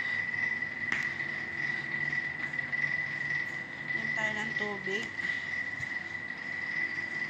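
A steady high-pitched tone, with a brief voice sound about four seconds in.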